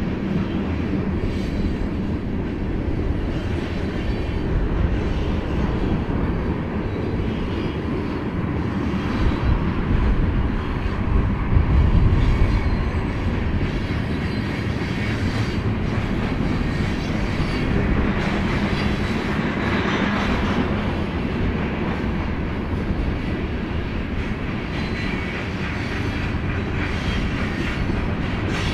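Union Pacific freight train's cars rolling past in a steady rumble of wheels on rail, with clickety-clack from the rail joints. It swells louder about a third of the way in.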